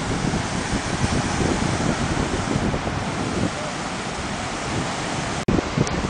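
Wind buffeting the camcorder microphone over the steady wash of surf on a beach. The sound drops out for an instant near the end, at a cut in the recording.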